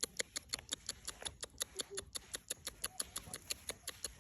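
A rapid series of short, sharp clicks or taps, about eight a second, fairly evenly spaced.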